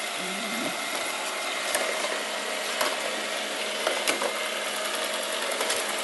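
iLife V5s Pro robot vacuum running across a tiled floor: a steady motor whir with a faint held tone, and a few sharp clicks over it.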